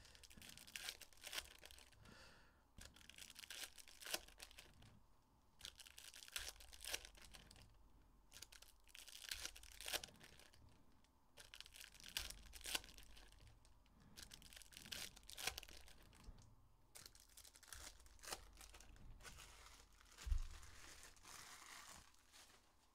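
Foil wrappers of hockey card packs being torn open and crinkled: faint, irregular crackling with small clicks. There is a soft thump near the end.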